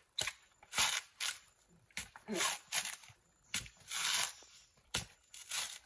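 Coconut husk being pried and torn off on a husking spike: a series of short tearing and cracking sounds from the fibrous husk, roughly one or two a second.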